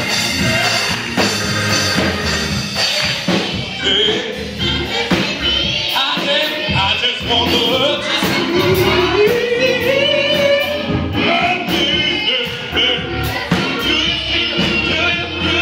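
Children's and youth gospel choir singing, with voices carrying the melody over a steady low backing. From about six seconds in, the congregation claps along with sharp handclaps.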